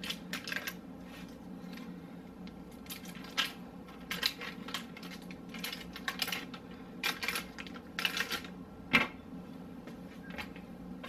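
Butter being unwrapped and dotted onto a parchment-lined sheet pan of cut vegetables: irregular light paper rustles and small clicks, with a sharper knock about nine seconds in. A steady low hum runs underneath.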